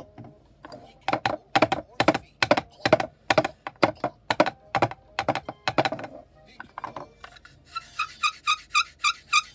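A regular series of about a dozen sharp knocks, roughly two a second, then near the end a quicker run of higher, ringing ticks, about four a second.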